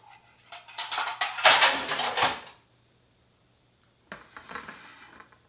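Cutlery and dishes clinking and clattering during sandwich assembly. There is a quick run of clinks that grows loudest about two seconds in, then stops, and softer clatter starts again about four seconds in.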